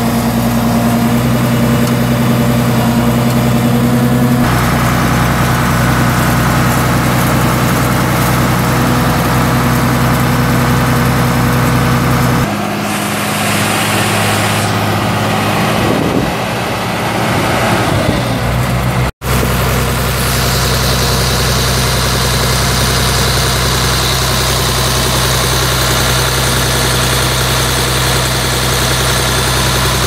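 Cummins 5.9-litre inline-six diesel engine of a Blaw-Knox PF-5510 asphalt paver running steadily at idle. Its tone shifts abruptly a few times and drops out for an instant just past the middle.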